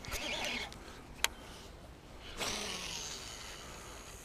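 Fishing rod and baitcasting reel handled during a lure cast: a short rush of noise at the start, a single sharp click about a second in, and a second, longer rush about halfway through that fades away.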